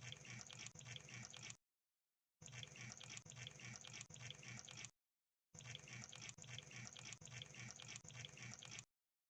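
Crab sound effect: rapid wet clicking and crackling, like bubbling, in three stretches that start and stop abruptly with short silences between them.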